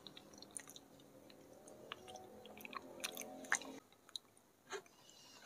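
Faint, wet mouth clicks and smacks of someone chewing soft chocolate milk pudding.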